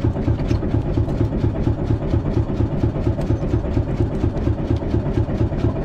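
Fishing boat's engine running steadily with a fast, even chugging beat.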